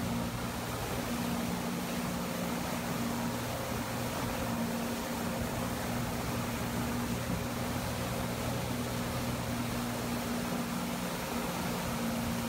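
Yamaha 232 jet boat's engines running steadily under way while towing a rider, a low even hum under a rush of water and wind.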